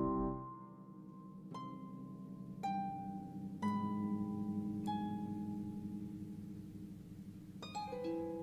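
Concert harp played solo: single plucked notes spaced about a second apart, each left ringing, then a quick rolled group of notes near the end.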